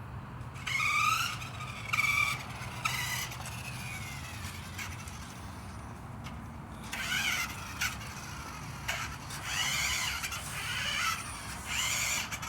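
Radio-controlled toy car driving in short spurts: a series of high whines that rise and fall in pitch, several in the first three seconds and a longer run in the second half.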